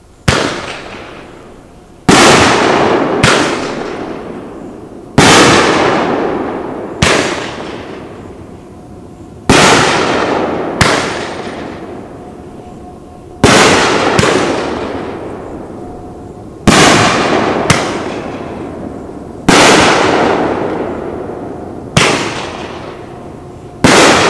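Consumer 500-gram aerial repeater cake firing 2-inch chrysanthemum shells one after another: sharp booms every two to three seconds, each with a long echoing tail, several followed by a lighter pop about a second later.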